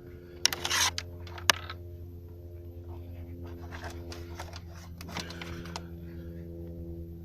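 Rubbing and scraping handling noises with a single sharp click about a second and a half in, over a steady low hum.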